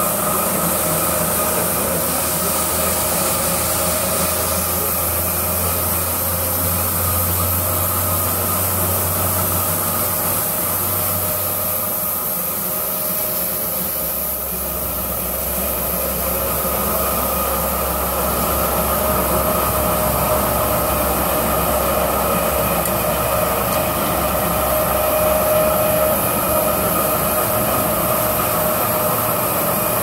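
Automatic carpet washing machine running: its rotating disc brushes and conveyor make a steady mechanical hum with a constant whine over it. The low hum drops slightly in pitch about halfway through.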